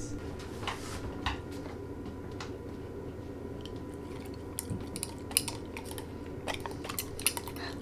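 A dog licking and biting meat off a metal fork: scattered small clicks of teeth on the fork, a few at first and then in quick clusters through the second half.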